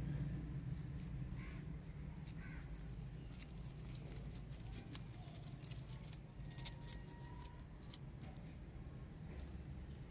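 Faint crackling and rustling of leaves and plants as kittens move through ivy and leaf litter, most dense in the middle few seconds. Before the crackling there are a couple of faint short high calls.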